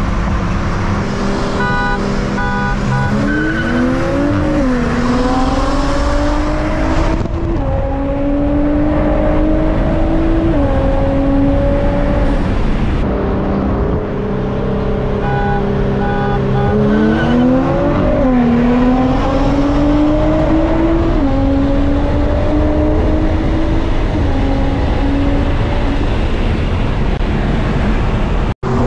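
Performance car engine accelerating hard through the gears in two runs. Its pitch climbs and falls back at each upshift.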